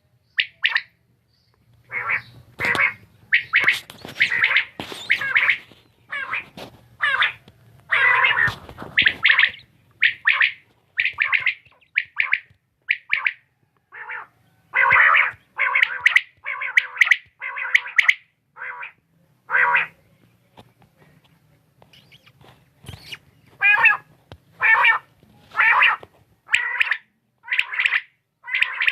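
Quail calling: a rapid run of short, harsh call notes repeated over and over, with a brief lull about two-thirds of the way through.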